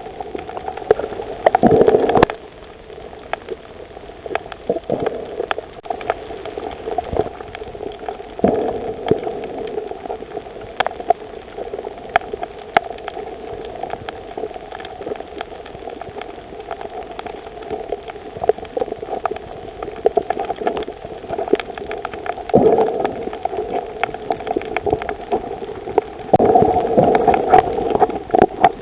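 Underwater sound on a coral reef: a steady crackle of small clicks, with louder gurgling, bubbly surges several times, the longest near the end.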